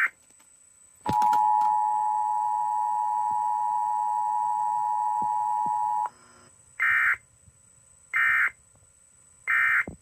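Emergency Alert System broadcast tones: the steady two-tone attention signal held for about five seconds, then, after a short gap, three short bursts of SAME data tones, the end-of-message code that closes an alert.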